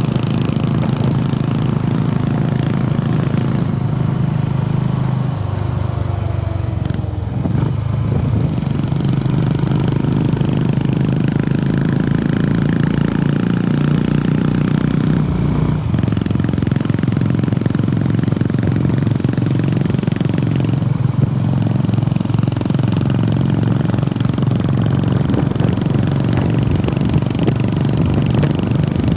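Honda CB350RS's single-cylinder engine running while the motorcycle is ridden. Its exhaust note steps down and back up several times with throttle and gear changes.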